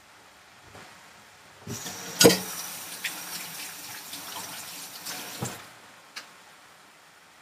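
Water running from a tap for about four seconds, starting a little under two seconds in, with a sharp knock just after it starts and another as it stops.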